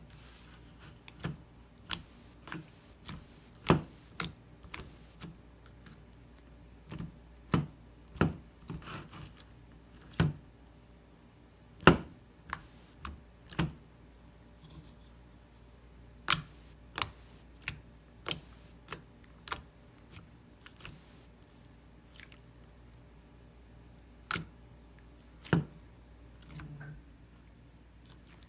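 Glossy blue slime being poked and pressed by fingers in a plastic tub, giving irregular sharp wet clicks and pops, roughly one or two a second, with a short softer squish near the end.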